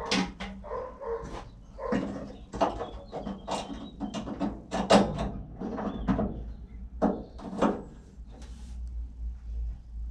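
A dog barking repeatedly in short, irregular barks, thinning out in the last couple of seconds.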